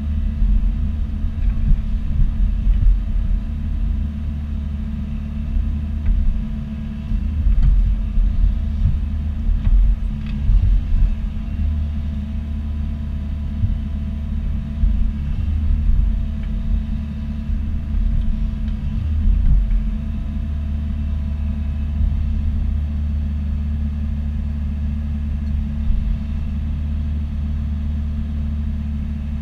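Bobcat E42 mini excavator's diesel engine running under a varying working load, rising and falling in loudness, then running more evenly for the last third.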